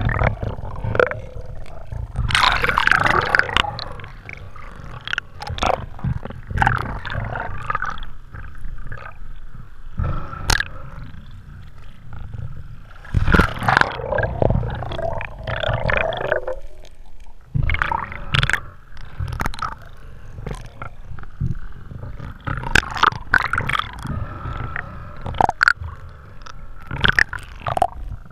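Muffled underwater noise picked up by a submerged camera: irregular gurgling and low rumbling that swell and fade every few seconds, with scattered sharp knocks.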